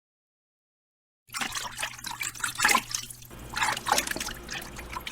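Liquid trickling and splashing in irregular spurts, as when poured into a vessel, starting abruptly about a second in over a faint steady hum.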